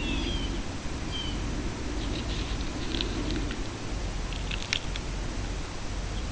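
Two short high chirps that fall slightly in pitch near the start, then light scraping and clicking of a plastic sand toy in sand, with a sharper click near the end, over a steady low rumble.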